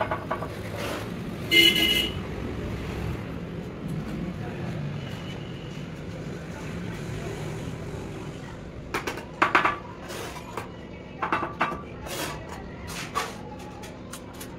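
Steel bricklaying trowel knocking and scraping on bricks and mortar as bricks are set and cut: one loud ringing clink about a second and a half in, then a run of sharp taps and knocks from about nine seconds on, over a steady low background rumble.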